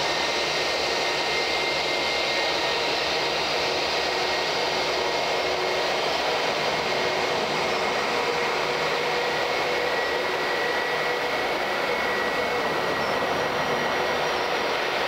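Airbus A319 jet engines running: a steady rushing noise with faint steady whining tones through it.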